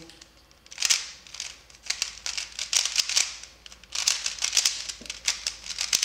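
A MoYu AoLong V2 3x3 speedcube being turned fast by hand, its plastic layers clicking and clacking in quick bursts of turns with short pauses between. The new cube feels a little dry.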